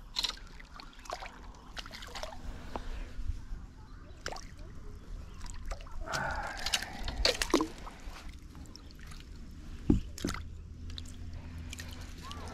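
A hooked bass splashing and thrashing in shallow water close by as it is drawn in to hand, with water sloshing. The splashing comes thickest about six to eight seconds in, and a single sharp knock about ten seconds in is the loudest sound.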